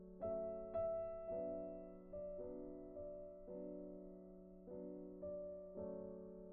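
Background piano music, a slow line of notes struck every half second to a second, each fading away.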